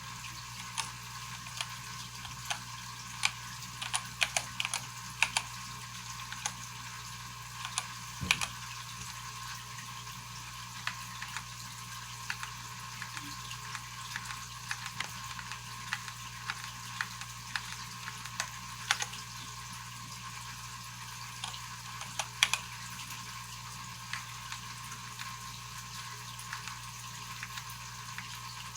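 Occasional key presses on a Keychron K8 mechanical keyboard with Gateron switches: single sharp clicks, sometimes two or three close together, at irregular intervals over a steady hiss and low hum.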